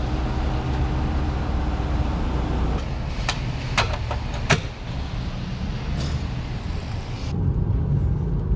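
Steady low vehicle rumble with several sharp clicks and knocks between about three and six seconds in, as a hubcap is pressed onto a car's front wheel. A little past seven seconds it changes to the muffled road and engine rumble heard inside a moving car.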